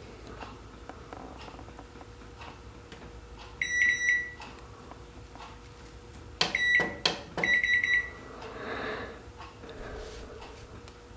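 Swan retro digital microwave beeping: a quick run of high electronic beeps about three and a half seconds in, then a single beep and another quick run a few seconds later, with sharp clicks among them. A steady hum runs underneath.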